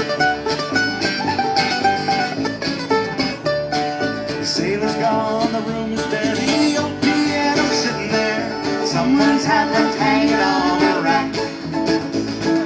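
Live acoustic folk band playing an instrumental break: picked and strummed strings with a melody line that slides in pitch over them.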